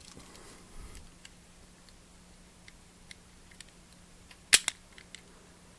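Small metal-and-plastic clicks and taps from a drilled-out diecast toy car being handled and pulled apart, with one sharp click about four and a half seconds in and a smaller one right after.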